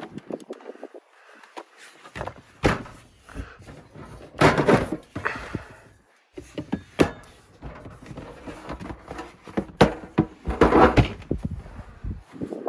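Irregular knocks and thumps with rustling between them, as things are handled and set down in a small enclosed space; the loudest clusters come about a third of the way in and again near the end.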